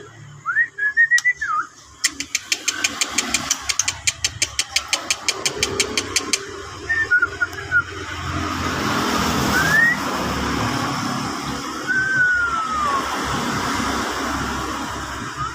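White-rumped shama (murai batu) singing: a few short whistled glides, then a fast run of sharp repeated ticks, about seven a second for some four seconds, the rattling 'trotol' phrase, followed by single rising and falling whistles. A steady low rumble runs under the second half.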